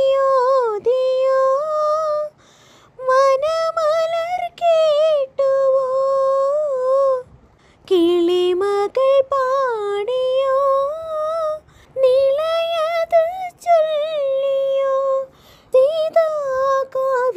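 A high female voice singing a devotional melody solo in long, held, gliding phrases with vibrato, separated by short breaths, with little or no accompaniment.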